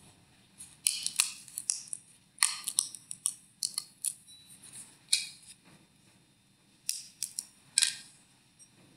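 Light, irregular clicks and taps from the altar vessels (chalice, paten and lid) being handled on the altar, a dozen or so small sounds with brief quiet gaps between them.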